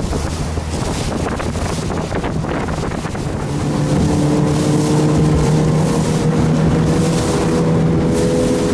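Small fishing boat's outboard motor running at speed over choppy water, with wind buffeting the microphone. The engine's steady note comes through clearly and louder about three and a half seconds in.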